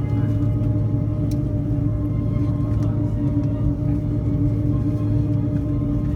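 Steady cabin drone inside an Airbus A330-300 after landing, a constant hum with several held tones and no change in level. A faint click comes about a second in.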